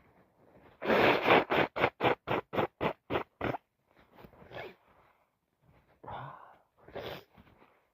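A person with a heavy cold sneezing and sniffling. A loud, forceful burst comes about a second in, followed by a quick run of about ten short breathy bursts, then a few quieter sniffs.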